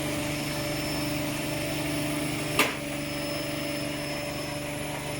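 Hotwired washing machine motor running steadily, turning the drum with a constant hum. A single sharp knock about two and a half seconds in.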